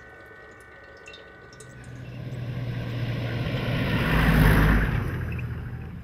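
A motor vehicle drives past: its engine note and road noise swell to a peak about four and a half seconds in, then fade away.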